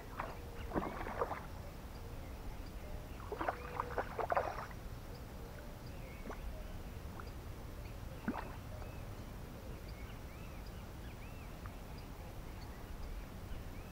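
Short bursts of splashing and sloshing water, two in the first five seconds and one more near the middle, over a steady low rumble of wind on the microphone.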